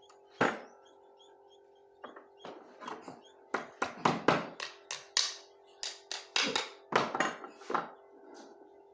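Hammering on wood: a run of about fifteen sharp knocks, irregular and coming faster in the middle, over a faint steady hum.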